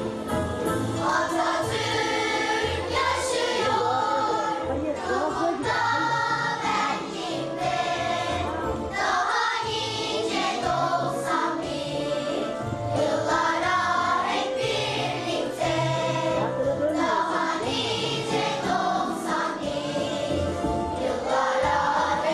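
School choir singing a song together, with musical accompaniment underneath.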